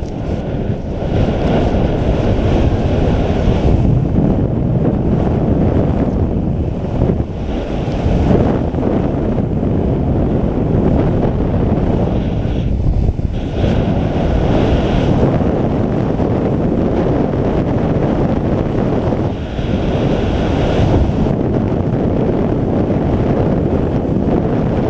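Skydiving freefall wind rushing over the camera's microphone: a loud, steady, rumbling roar that swells and eases now and then.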